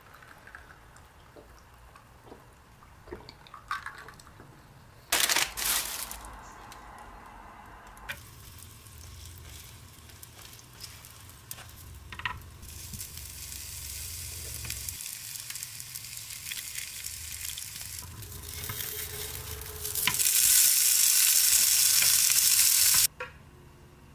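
Food frying in a hot multi-section frying pan, among it a tteokgalbi patty and English muffins: a steady sizzle with a short loud burst about five seconds in, and a louder, hissier sizzle near the end that stops suddenly.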